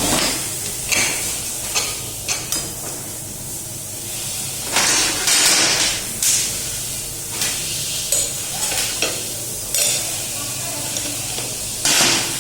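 Workshop work on an electric scooter: irregular sharp clicks and knocks of tools on metal, with two short hissing bursts, one about five seconds in and one near the end.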